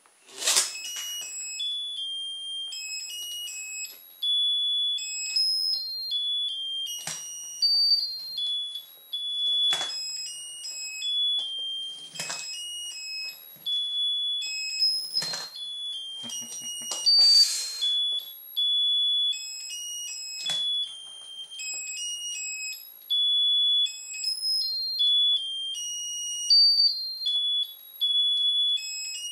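Cheap toy motorbike's sound chip playing a tinny electronic tune of short high beeping notes. A handful of sharp knocks cut through it as the plastic toy hits the wooden floor.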